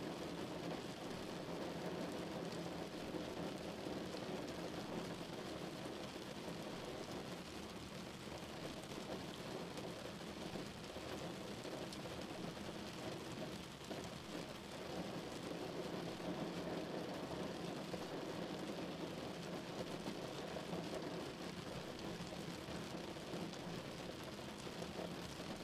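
Rain falling on a car's windscreen and roof, heard from inside the moving car, over a steady hum of engine and road noise.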